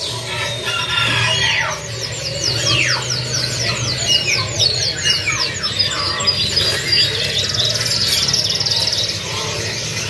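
Loper canaries singing: long, high rolling trills made of rapid downward-sweeping notes, turning into a fast buzzing trill later on.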